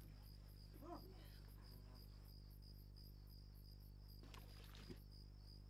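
Faint crickets chirping in a quick, even pulse over a low steady hum, with a brief faint sound about a second in and another near the end.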